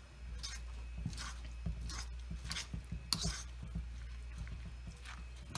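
A hand squishing and turning canned corn mixed with soft cream cheese in a stainless steel bowl, a short wet squelch about every three-quarters of a second, over a steady low hum.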